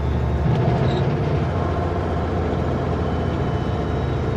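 Kenworth W900L semi truck's diesel engine running steadily with a low drone, its pitch shifting slightly about half a second in.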